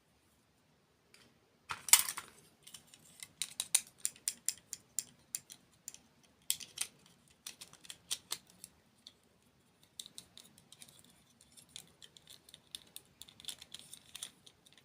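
Close-miked crunching and crackling of sweets being eaten: a run of sharp, crisp clicks, loudest about two seconds in, then continuing in irregular clusters with short pauses.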